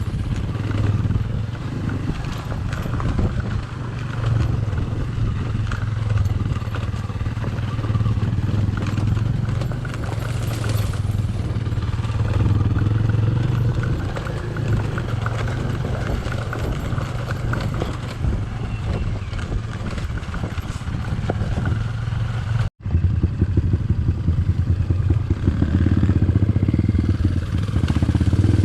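Trail motorcycle engine running steadily while being ridden, with many small knocks and rattles over it. The sound cuts out abruptly for an instant about 23 seconds in and comes back louder.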